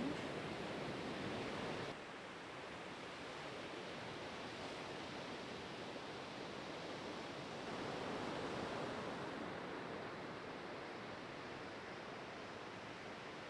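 Ocean surf at a beach break: a steady wash of breaking waves, dropping a little about two seconds in and swelling again a little past the middle.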